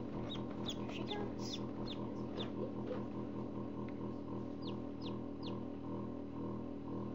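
Chick peeping in the incubator: short, high peeps that fall in pitch, a quick run of about eight, then three more a couple of seconds later. Under them runs the loud, steady hum of the forced-air incubator's fan.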